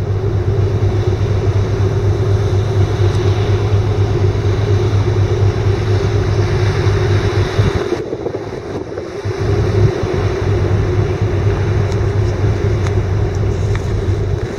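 Steady low drone of a ferry's engines and machinery on the open deck, under a constant rushing hiss. It dips briefly about eight seconds in, then returns.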